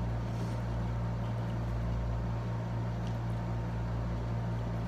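Window air conditioner running with a steady low hum.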